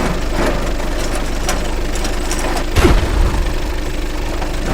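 Vehicle engine running steadily with a low rumble, and a single low boom about three seconds in.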